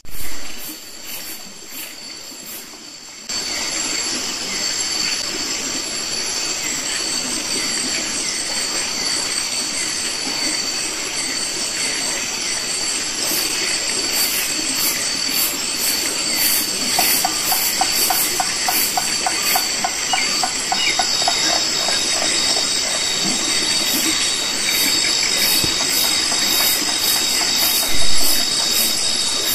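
A steady rushing of water, such as heavy rain or a flowing stream, that starts suddenly a few seconds in, with insects droning in high steady tones. There is a thump at the very start and another near the end.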